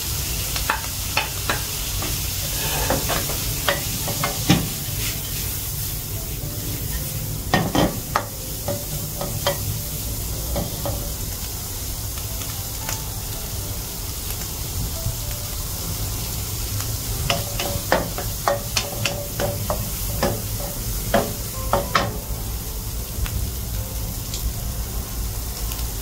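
Bacon and diced shrimp sizzling in hot oil as they are stir-fried, a spatula scraping and knocking against the pan now and then, with clusters of knocks about a third of the way in and again later on.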